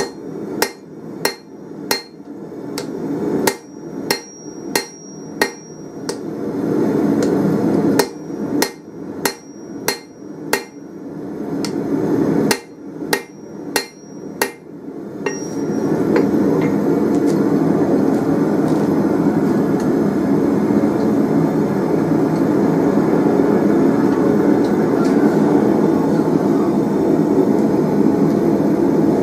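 Hand hammer striking a red-hot 24 mm steel round bar on an anvil face, about two blows a second in three runs with short pauses, some blows leaving a faint ring. About halfway through the hammering stops and a steady rushing noise carries on to the end.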